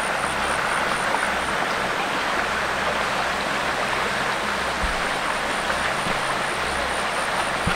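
Steady rushing of a flowing forest stream.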